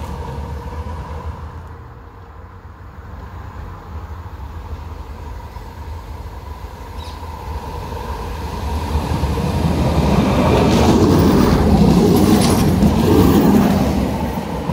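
A Croydon Tramlink Bombardier CR4000 tram running on the rails as it approaches and passes close by. Its wheel and running noise builds from about eight seconds in and is loudest over the last few seconds as it goes past.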